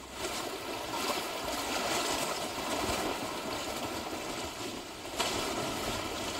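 Small sea waves washing in over shallow water and sand around a person's legs, a steady wash of water with a fresh wave surging in about five seconds in.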